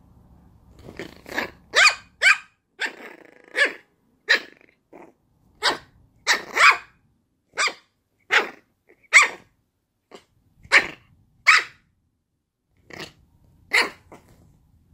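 A small long-haired puppy yapping: a quick, uneven string of some twenty short, sharp barks, with a brief growl among them about three seconds in and a pause of about a second near the end.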